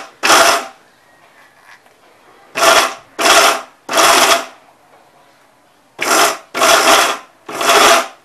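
Bajaj electric mixer grinder with a steel jar, pulsed in short bursts of about half a second to grind cashews and almonds coarsely rather than to a powder: one burst at the start, then two groups of three.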